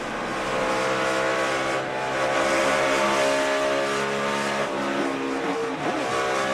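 NASCAR Cup stock car V8 engines running at high revs, holding a steady pitch, then falling in pitch near the end.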